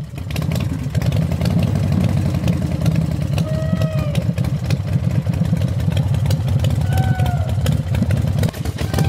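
Motorbike engine sound effect from a roller coaster's on-board audio: a steady, low pulsing engine rumble. Short gliding high tones come in about four and seven seconds in.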